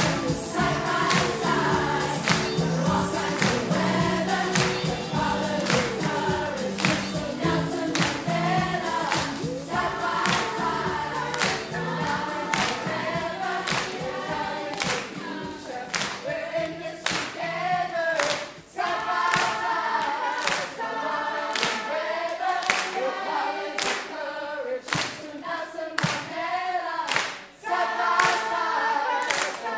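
Mixed choir of children and adults singing a reggae song live, with steady hand claps on the beat. The low instrumental accompaniment drops away about halfway through, leaving the voices and claps.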